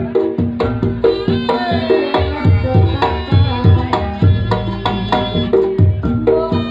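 Traditional Reog Ponorogo ensemble music: hand-played kendang drum strokes in a steady driving rhythm, under sustained melodic instrument lines.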